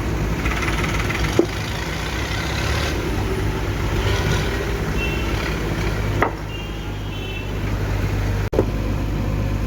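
Heavy diesel engine of a JCB 3DX backhoe loader running steadily, with a couple of brief sharp knocks.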